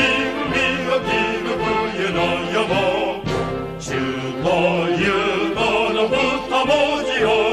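A Japanese military song sung in Japanese, the voice wavering with vibrato over instrumental accompaniment.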